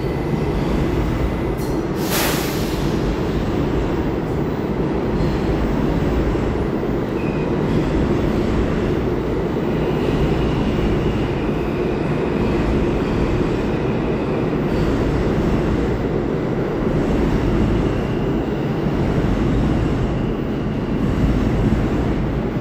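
Steady loud rumble of a New York subway station with an R68A train standing at the platform, doors open, and faint steady high tones over it. A short, sharp hiss about two seconds in.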